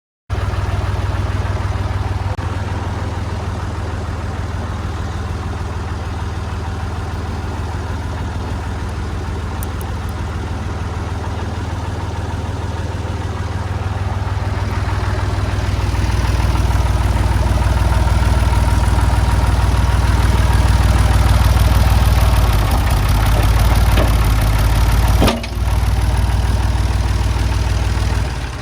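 Backhoe loader's engine running steadily. It gets louder about halfway through and stays there, with a short dip and a clunk a few seconds before the end.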